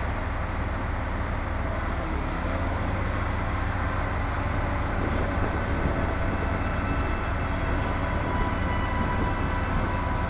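Diesel engine of a large drilling rig running steadily, a constant low drone.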